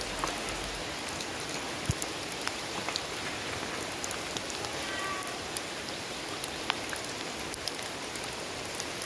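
Steady rain falling, a hiss with scattered sharp drop ticks on nearby surfaces.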